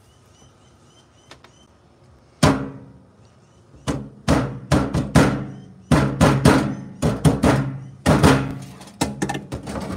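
A heavy cleaver is being driven down through a whiting's head onto a wooden cutting board: a string of about a dozen dull thunks, each ringing briefly. The blows start about two and a half seconds in and come irregularly, some close together and some up to a second apart.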